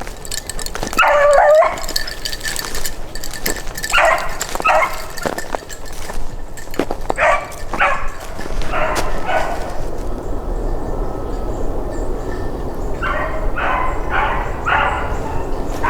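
A beagle hound giving tongue on a rabbit's trail. One drawn-out bawl comes about a second in, then short chop barks in pairs and small groups, and a quicker run of barks near the end.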